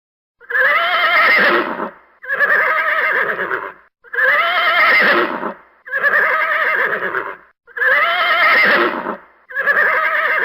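Horse whinnying, six quavering calls of about a second and a half each, evenly spaced with short silences between them, the last still going at the end.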